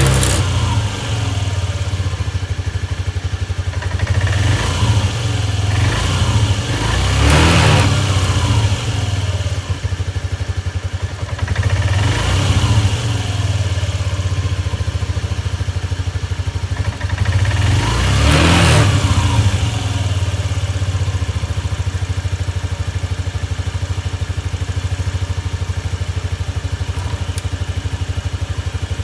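Small moped scooter engine running after long storage. The throttle is blipped several times, each rev rising and falling back, and then the engine settles to a steady idle for the last third.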